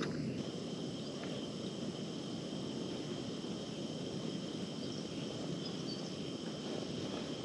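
A steady, high insect trill over a low, even rushing noise.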